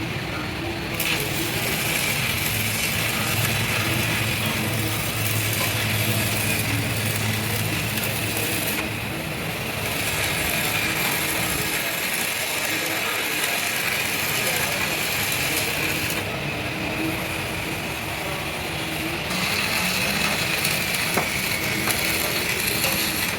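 Continuous rattling, rasping mechanical noise of metalwork on a truck axle, going on without a break and changing texture every few seconds.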